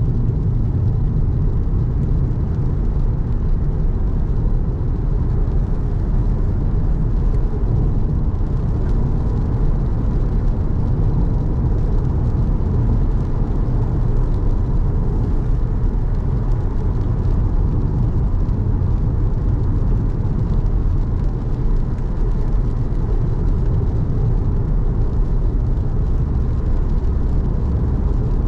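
Car driving on a rain-wet road: a steady low rumble of engine and tyre noise.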